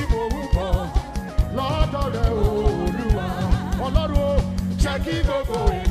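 Live gospel music played loud by a band: a singer's voice over keyboard and a steady drum beat.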